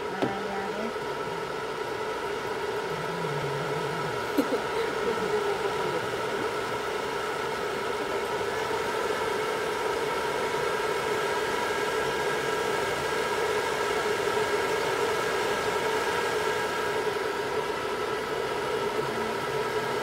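Hand-held hair dryer running steadily: an even whir of air with a steady motor hum, blowing on a toy poodle's wet coat to dry it after a shampoo.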